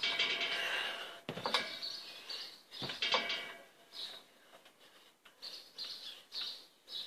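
A child bouncing on a trampoline: two sharp thumps of landings on the mat in the first half, then a run of short, high chirps about every half second.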